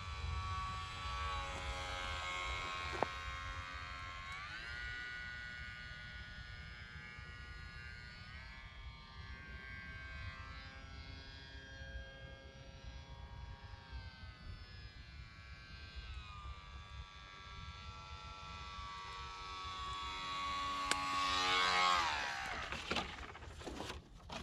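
Small brushless outrunner motor (1304, 3000 kV) spinning a 6x3 propeller on a light foam RC plane in flight: a steady buzzing whine whose pitch glides up and down several times with the throttle, over a low wind rumble on the microphone. Near the end it grows loudest and drops in pitch as the plane passes close, then a few sharp rustling knocks as it comes down in the grass.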